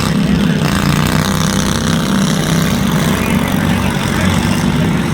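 Several riding lawnmower engines running together in a steady drone, one revving up briefly about half a second in.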